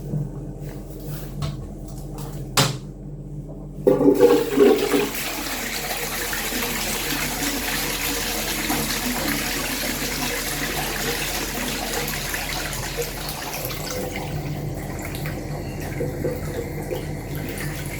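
Toilet flushing: a sharp click of the flush handle, then a loud rush of water about four seconds in that settles into steady running water and eases off somewhat near the end.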